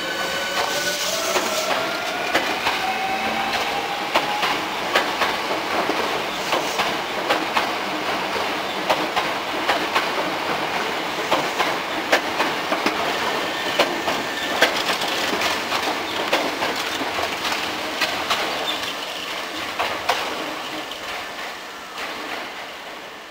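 Hankyu 7300 series electric train with a renewed Toyo Denki VVVF inverter pulling away. A rising inverter and traction-motor whine rises in pitch over the first few seconds, then the wheels clatter over rail joints as the cars pass, fading near the end as the train moves off.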